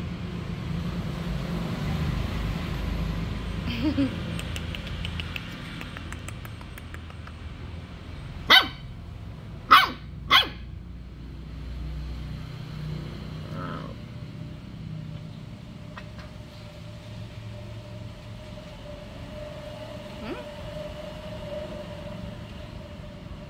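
A dog barks three short, sharp times near the middle: one bark, then two more close together about a second later. A steady low rumble runs underneath.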